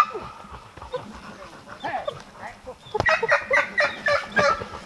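A dog barking rapidly, about four short barks a second, starting about three seconds in, just after a sharp knock. Before that there are only a few faint whining glides.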